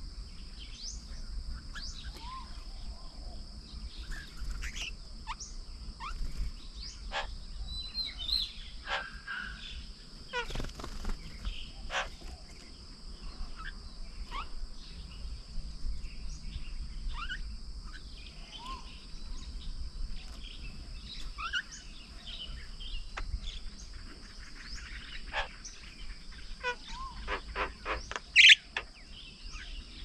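Wild birds chirping and calling, with scattered short chirps and rising whistles over steady outdoor background noise and a constant high-pitched drone. A louder rapid chatter comes near the end.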